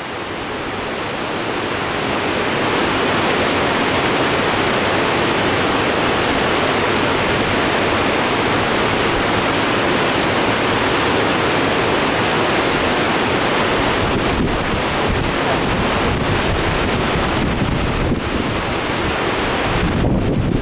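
Steady rush of fast, turbulent creek water pouring through rapids below a dam. The creek is running high and strong after rain. The rush swells over the first couple of seconds and then holds steady.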